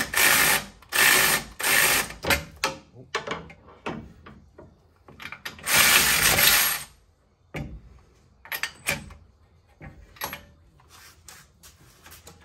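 Electric ratchet running in short bursts, tightening a ball joint nut on a truck's steering knuckle: several short runs in the first three seconds and a longer run about six seconds in, then scattered light metal clicks.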